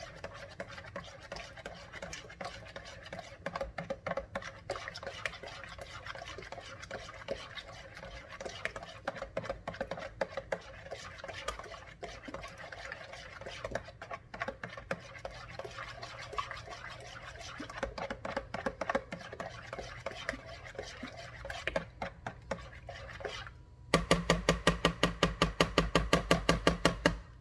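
A spoon stirring broth in a cooking pot, with irregular scrapes and clinks against the pot. Near the end comes a loud, fast, even knocking, about eight or nine strokes a second for about three seconds.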